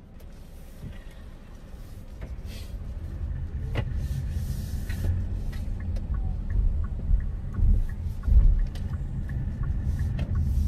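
Low road and tyre rumble inside the cabin of a moving car, growing steadily louder as the car picks up speed, with a few light clicks over it.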